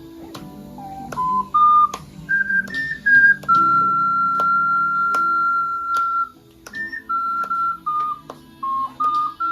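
Ocarina playing a slow melody with pure, whistle-like notes, stepping upward and then holding one long note before a falling phrase, over a sustained keyboard chord backing.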